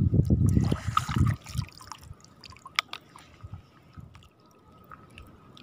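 Water splashing and dripping as a fishing landing net is worked at the water's surface, with scattered small clicks of handling. A low rumble fills the first second or so.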